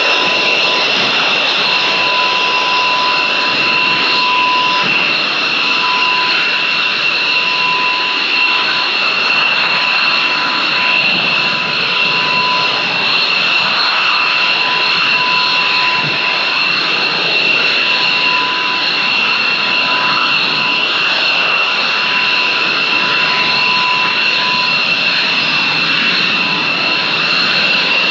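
Panavia Tornado IDS's twin RB199 turbofan engines running steadily on the ground, a loud constant jet noise with a piercing high-pitched whine that neither rises nor falls.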